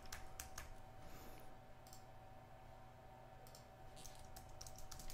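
Faint, scattered clicks of a computer keyboard and mouse, coming singly or a few at a time.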